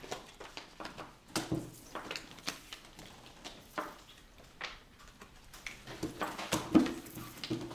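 Playing cards handled at a table: a string of light, irregular taps and clicks.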